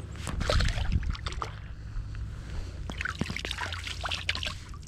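Shallow lake water splashing and trickling irregularly, louder for about the first second and again around three seconds in.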